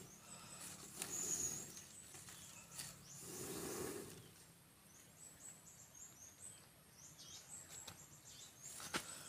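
Small birds chirping with quick, high, falling calls, thickest in the second half. Under them come low rushing puffs of air from blowing on a smoky wood fire. A sharp click sounds near the end.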